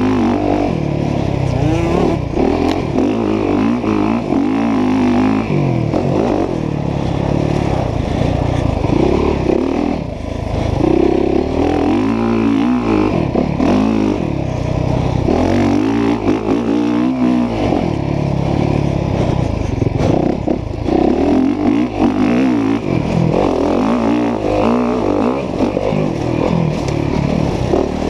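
Dirt bike engine on a motocross track, revving up and dropping back again and again as the rider accelerates through the gears and backs off for corners.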